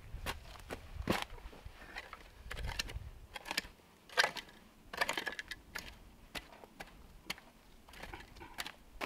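A long-handled digging tool chopping and scraping into forest soil, irregular crunchy strikes with a few louder ones about a second in and around four to five seconds in.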